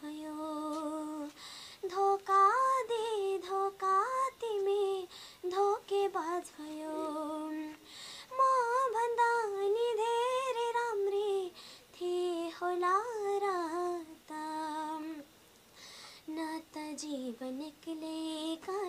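A young girl singing a Nepali pop song solo and unaccompanied, in phrases of held, wavering notes with short breaks between them.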